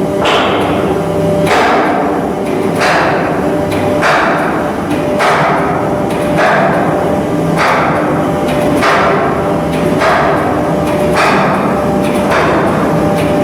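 A very regular series of struck, ringing impacts, about one every 1.2 seconds, each trailing off slowly, over a steady low hum.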